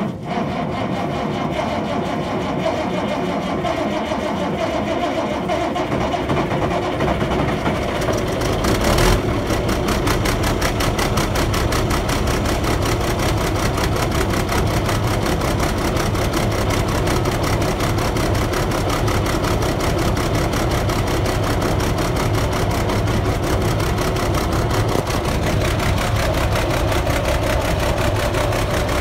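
TG75C crawler bulldozer's diesel engine running steadily just after its first start following winter, with one brief louder surge about nine seconds in.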